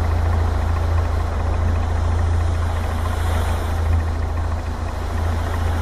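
A boat's engine running steadily with a constant low hum, over the hiss of water moving past the hull.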